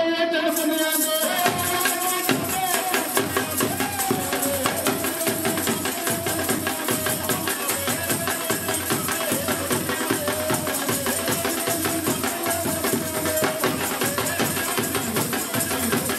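Punjabi folk instruments playing a steady, fast rhythm: the jingles of chimta tongs, the clacking of a wooden sapp and a dhol drum, with a man singing over them through a microphone.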